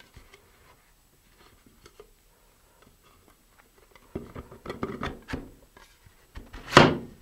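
Handling noise as a fiberglass model rocket's nose cone is pushed into the body tube over the packed parachute and shock cord: rustling and scraping from about four seconds in, then one brief, louder rush of noise near the end.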